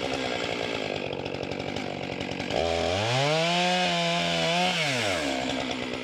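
Stihl chainsaw idling, then revved up once to a high steady pitch for about two seconds and let fall back to idle.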